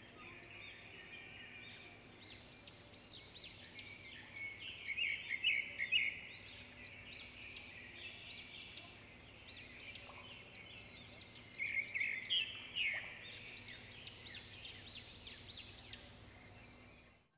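Several wild birds chirping and calling in quick, high, repeated notes, coming in bunches, busiest around two, six and twelve to fourteen seconds in.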